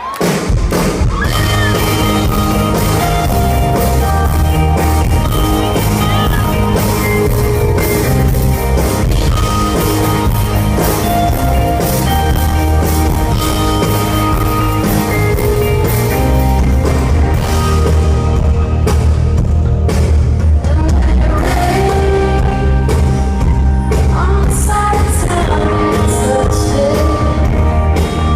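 Rock band playing live in concert with a female lead singer, the music starting abruptly and staying loud throughout.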